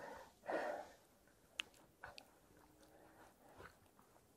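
A breath near the start, then a few faint clicks and rustles of hands shifting their grip on a freshly caught pike.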